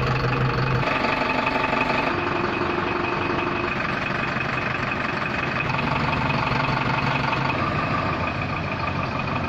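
Tata LPT 1109 truck's diesel engine idling steadily.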